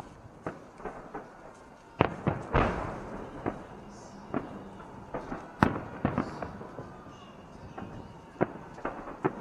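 Fireworks salute shells bursting overhead: a run of sharp bangs at irregular intervals, the loudest about two seconds in, again half a second later, and once near the middle.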